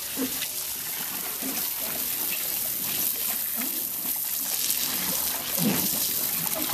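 Water from a garden hose spraying and splashing onto a baby elephant sitting in a plastic tub: a steady hiss of running water. A few short low sounds come through now and then, the loudest about six seconds in.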